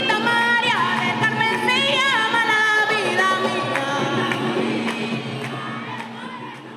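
Music with a singing voice that slides between notes over a steady low drone and light percussion, fading out toward the end.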